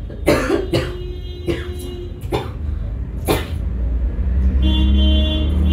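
A woman coughing: about five short coughs spread over the first three seconds or so, coughing on cigarette smoke. A low, steady hum comes up near the end.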